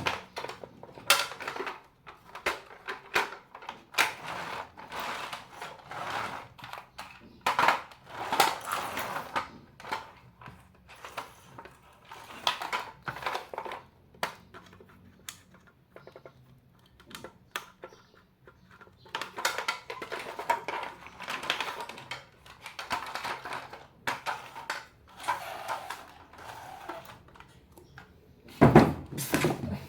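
Irregular clicking, clattering and scraping of hard objects, in short clusters separated by brief pauses, with a quieter stretch about halfway through.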